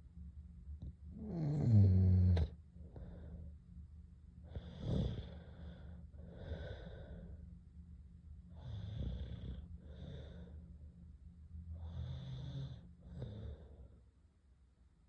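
A sleeper snoring: one loud snore about a second in that drops in pitch, then slower, quieter paired breaths in and out, a pair every three to four seconds.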